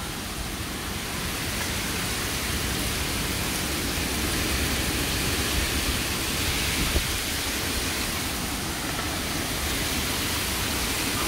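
Heavy thunderstorm rain and strong wind making a steady, dense rushing hiss with a low rumble underneath, a little louder after the first couple of seconds. A single brief tap about seven seconds in.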